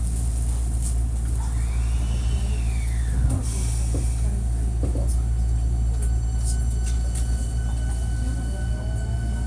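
Hankyu 1300-series electric train heard from inside the car while under way: a steady low rumble with faint rail clicks, a tone that rises and falls a couple of seconds in, and a rising motor whine near the end. This car is noted for its unusual acceleration and braking sounds.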